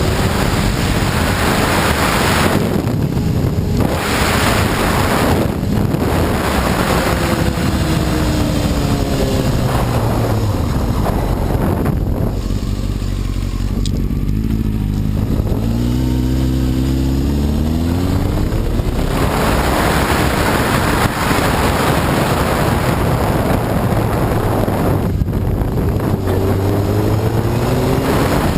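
Honda CBR954RR sport bike's inline-four engine under way, its pitch sweeping up several times as it accelerates and shifts and dropping once as it eases off, over a constant rush of wind and road noise.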